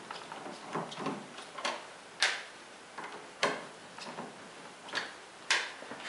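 A screwdriver undoing the screws on a chest freezer's lid hinges: a run of irregular clicks and ticks, with a few sharper clicks about 2, 3½ and 5½ seconds in.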